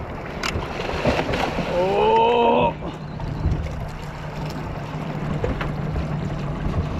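Outboard motor running with a steady low hum, under rumbling wind and water noise. A drawn-out shout about two seconds in is the loudest sound.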